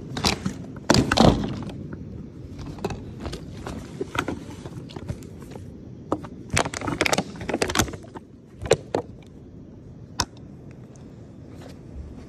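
Handling noise of a phone being moved and propped up low on a carpeted floor: a run of knocks, scrapes and rustles, loudest about a second in, with scattered clicks and taps afterwards.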